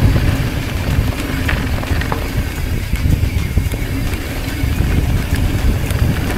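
Wind noise on an action camera's microphone as a mountain bike rolls down a dirt trail, with tyre noise on the dirt and a few light clicks and rattles from the bike.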